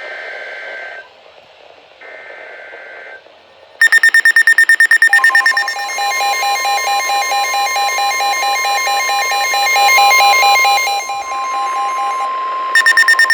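Weather radio emergency alert signal: a few short bursts of two-tone digital data warble (the SAME header), then a loud alarm of rapid, high-pitched pulsing beeps over a steady warning tone, announcing a Winter Storm Warning.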